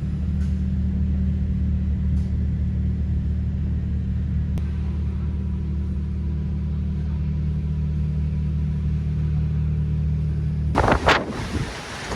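Steady low hum of a vehicle running, with no change in pitch. Near the end it stops suddenly and gusts of wind on the microphone take over.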